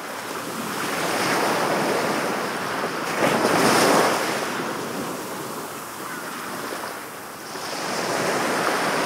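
Ocean surf: a wash of waves that swells and falls back, loudest about four seconds in and surging again near the end.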